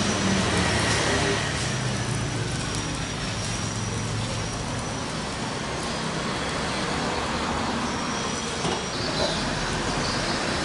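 Steady hiss of oil sizzling in a hot non-stick pan over a gas flame.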